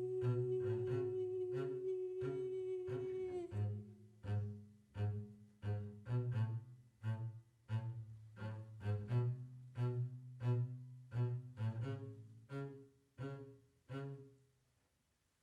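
Double bass plucking a slow, evenly paced figure of low notes, with a long held higher note above it that stops about three and a half seconds in. The bass then carries on alone, getting softer, and stops near the end as the song closes.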